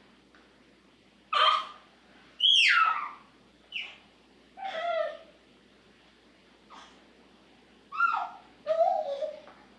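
A bird calling in a series of about six short, harsh calls, several of them sliding down in pitch.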